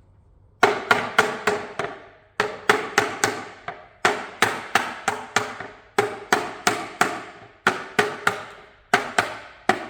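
Rubber mallet knocking phenolic plywood shelf panels together, seating the joints onto their tenons. The knocks come in quick runs of four to six, with short pauses between runs.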